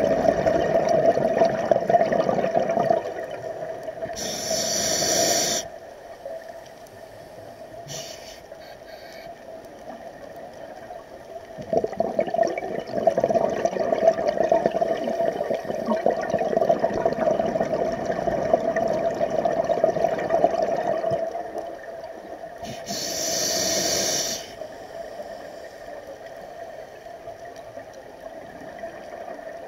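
Scuba breathing through a regulator underwater: long rushes of crackling exhaled bubbles alternate with short, high hisses of inhaled air, one about four seconds in and another near the end.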